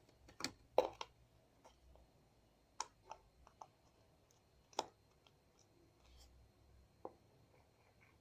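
Scattered light clicks and taps of small plastic paint pots, caps and a lid being handled, a handful of separate knocks with quiet between them and the sharpest about five seconds in.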